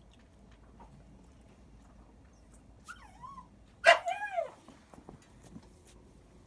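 Two-week-old puppy whimpering: a short squeak about three seconds in, then a louder cry of a few quick rising-and-falling squeals about a second later.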